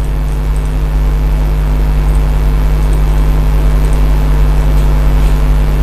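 Steady, loud low electrical hum with a buzzy overtone, unchanging throughout.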